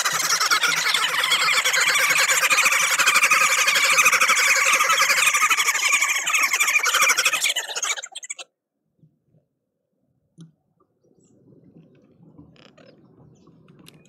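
A group of green woodhoopoes cackling together in a loud, rapid chattering chorus, their territorial call. It cuts off suddenly about eight seconds in, leaving only faint soft sounds.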